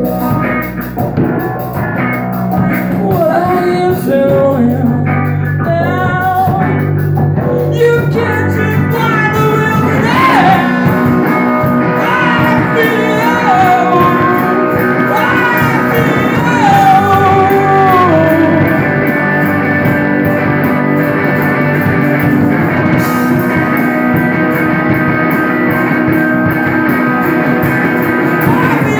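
A small rock band playing live on electric guitars and drums, at a steady groove, with a lead melody that bends and wavers in pitch.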